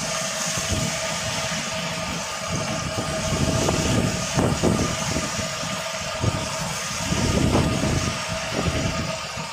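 A fishing boat's engine running steadily under the sizzle of food frying in a wide pan of hot oil.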